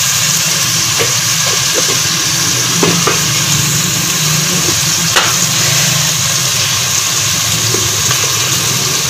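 Onion and tomato masala sizzling steadily in hot oil in a pot, over a steady low hum, with a few light clicks about three and five seconds in.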